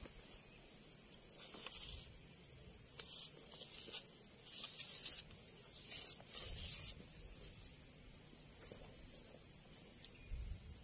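Steady high-pitched drone of insects, with a run of short rustles and scrapes from about a second and a half in until about seven seconds in.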